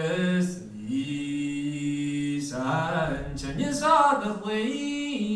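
A man singing unaccompanied in Irish, holding long notes and moving between them with small turns and slides.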